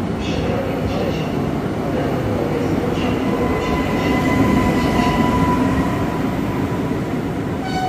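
Newag Impuls electric multiple unit moving along the platform: a steady rumble of the train with a steady electric whine through the middle, loudest about halfway.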